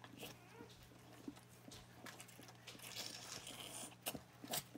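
Faint wet licking and chewing noises from a whelping Australian Shepherd mother cleaning her newborn puppy, with scattered soft clicks.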